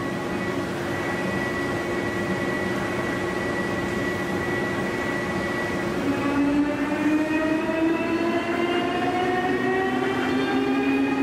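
Heavy CNC lathe rough-turning a crankshaft: several steady whining tones over a rushing cutting noise, some of the tones slowly rising in pitch from about halfway through.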